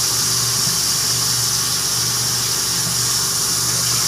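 Bathroom sink tap running in a steady hiss, with a steady low hum under it.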